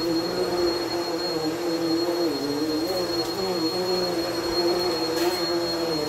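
Bagless upright vacuum cleaner running as it is pushed over a rug: a steady motor hum that dips and rises slightly in pitch, with a thin steady high whine above it.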